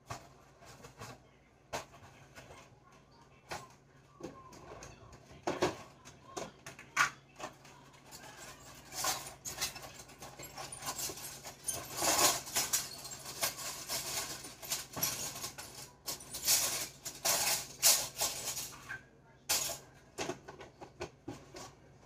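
Groceries being put away by hand: scattered knocks and clunks of items set down on shelves, with bursts of plastic grocery bags rustling through the middle.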